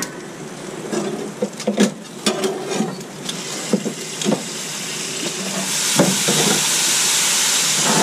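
Tongs and a spatula clicking and scraping on the grill grates as a barbecue-sauced spatchcock chicken is flipped over on a Char-Griller Gravity 980 charcoal grill. From about six seconds in a steady sizzle rises as the sauced side meets the hot grates.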